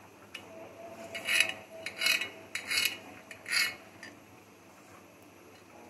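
Kitchen knife cutting raw chicken on a textured glass cutting board: four short scraping strokes, about one every three-quarters of a second, in the first half.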